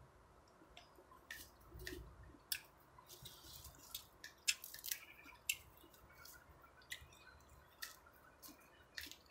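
A person chewing and smacking their lips while eating: faint, irregular wet clicks and smacks, about one or two a second.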